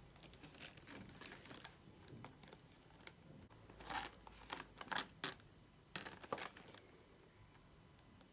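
Packaging being handled and opened: a crinkly wrapper rustling and crackling, with a cluster of louder sharp crackles in the middle.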